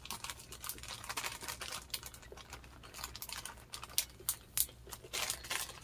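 Mouth sounds of chewing a Hershey's Kiss chocolate with the mouth closed: many soft, irregular wet clicks and smacks.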